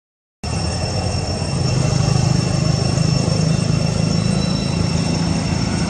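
Steady low engine drone, swelling about a second and a half in, with thin steady high-pitched tones above it; the sound drops out completely for a moment at the very start.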